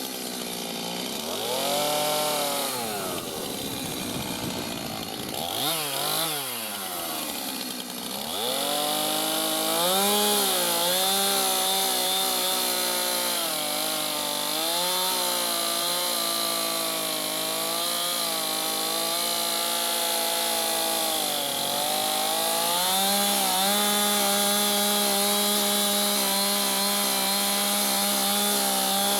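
Chainsaw cutting a scribe line into a log. The engine's pitch drops and climbs again several times in the first eight seconds or so, then holds steady at high revs under cutting load, with small dips.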